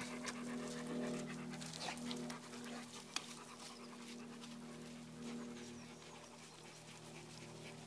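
A large dog panting fast after a swim, over a faint steady low hum.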